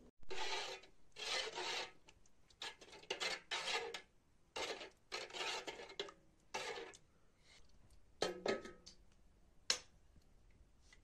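Metal ladle scraping against the inside of a copper pot of thick soup as it is stirred, a series of short scraping strokes, with one sharp tap near the end.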